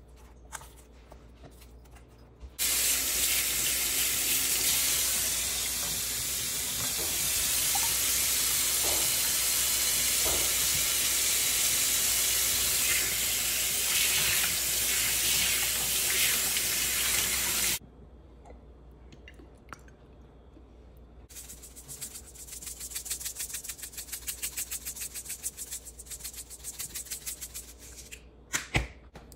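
Kitchen pull-down faucet running into a stainless steel sink while a hand is rinsed under the stream. It comes on suddenly, runs for about fifteen seconds and cuts off suddenly. Later comes a run of quick, even rattles from a seasoning shaker being shaken over raw steaks.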